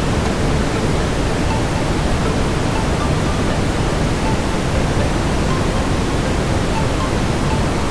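Steady brown noise: an even, deep rushing hiss, heaviest in the low end and thinning toward the top, with no changes.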